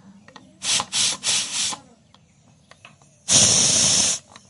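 Sharp hissing in bursts: three short ones about a second in, then a louder hiss lasting about a second near the end.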